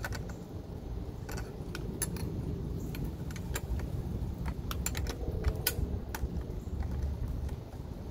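Small metal parts and tools clinking and clicking irregularly as they are handled while a steering damper is fitted to an electric scooter, over a low steady background rumble.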